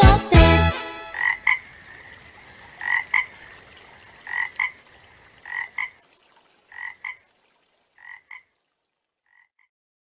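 The last beat of a children's song, then a frog croaking in short double croaks, seven pairs evenly spaced about every second and a half, each pair fainter until they fade out near the end.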